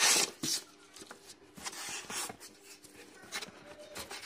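Foam and plastic packing rustling and crinkling as hands pull it from a cardboard box. A loud rustle comes right at the start, then shorter rustles and scrapes.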